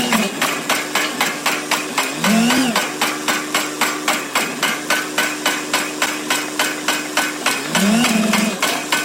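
Pile driver hammering a foundation pile: rapid, evenly spaced blows at about three a second, over the steady hum of its engine, which rises and falls in pitch twice.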